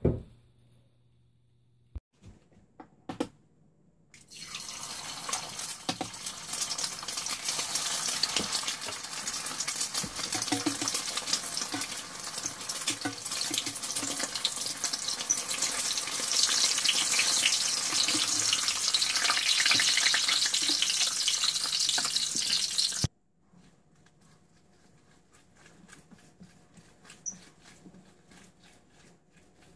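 Egg frying in hot oil in a cast-iron skillet: loud, dense sizzling and crackling that starts about four seconds in and cuts off suddenly a few seconds before the end, leaving only faint sound.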